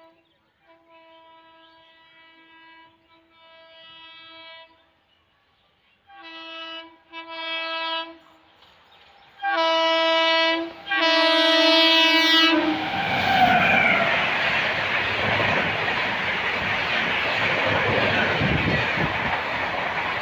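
Approaching Shatabdi Express locomotive sounding its horn in three pairs of steady blasts, each pair louder as it nears. About 12 seconds in, the train rushes past at speed with a loud, continuous noise of coaches and wheels on the rails and a brief squeal.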